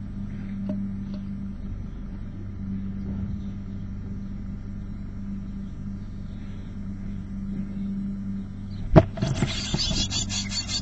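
Steady low hum with faint chick calls inside a nest box. About nine seconds in, a sharp knock comes as an adult blue tit arrives, and the blue tit nestlings break into rapid, high-pitched begging calls.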